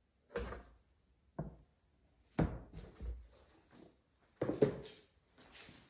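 A plastic tracing frame being picked up and set down on a wooden workbench: about five knocks and thunks, roughly a second apart.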